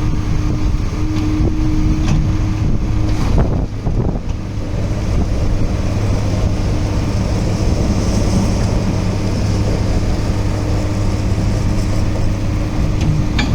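Diesel engine of a 2005 Cat M316C wheeled excavator running steadily, with a brief dip in the sound about four seconds in.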